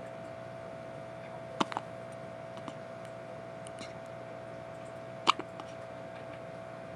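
A five-day-old baby hiccuping twice: short, sharp hiccups about a second and a half in and again about five seconds in, over a faint steady hum.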